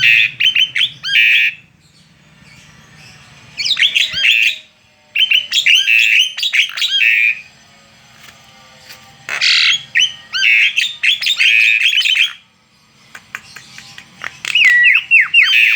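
Javan myna singing loudly in bursts of rapid, harsh chirps and squawky notes, five phrases a second or two apart.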